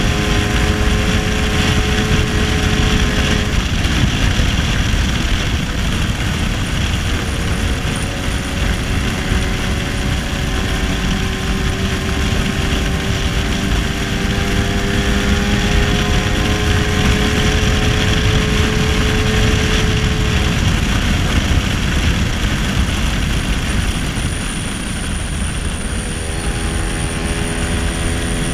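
1966 Lambretta SX scooter with a 225 Mugello two-stroke single-cylinder engine running under way, its note climbing slowly as the scooter gathers speed, with wind and road noise over it. The engine note drops back under the wind twice for a few seconds.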